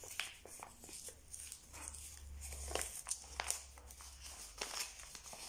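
Faint rustling of paper packaging being handled, with scattered small clicks and taps, over a low hum.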